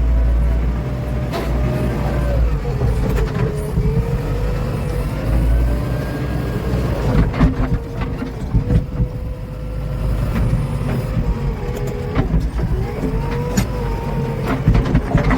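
JCB 3DX backhoe loader's diesel engine running, its pitch rising and falling repeatedly as the revs change, with several sharp clanks along the way.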